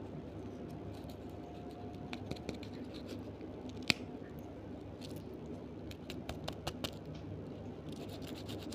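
Candy packaging being handled: scattered small clicks and crackles, with one sharp click about four seconds in and a quick run of clicks near the end, over a steady low hum.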